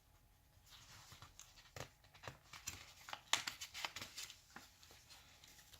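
Faint paper rustling with light irregular handling clicks: the pages of a plastic model kit's instruction booklet being turned and handled.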